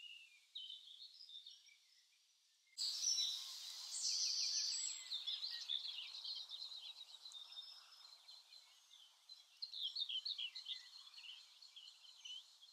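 Dawn chorus of many small songbirds, with rapid high chirps and trills overlapping. About three seconds in, a faint steady rushing background noise joins.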